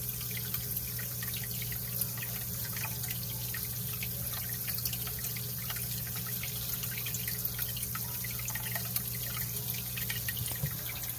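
Aquarium water trickling and dripping steadily, with many small splashes over a steady low pump hum.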